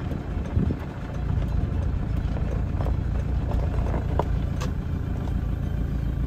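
Toyota Land Cruiser SUV rolling slowly over a rough dirt and gravel track, heard from the cabin through an open window: a steady low engine and tyre rumble with scattered clicks and knocks of stones and ruts under the tyres.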